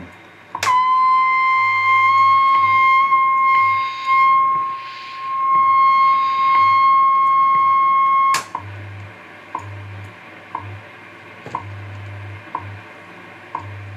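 National NC-183D shortwave receiver tuned to WWV at 15 MHz. A click switches on the 100 kHz crystal calibrator, whose marker comes through the speaker as a steady whistle of about 1 kHz, rising slightly as it settles. A second click cuts it off about eight seconds in, leaving WWV's ticks, one a second, over a low on-and-off hum.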